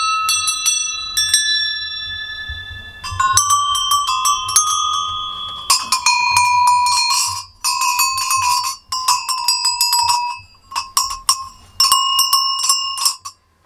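A row of cone-shaped brass sheep bells on their collar straps, jostled by hand so they clang against one another. It comes in repeated bursts of clanking strikes, each followed by a ringing of several bright tones that fades over a second or two, with short pauses in between.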